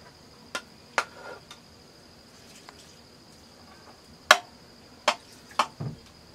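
Metal serving spoon clinking against a metal pot and plates as cooked rice is scooped and knocked off onto the plates: about six sharp clinks, the loudest a little past four seconds in.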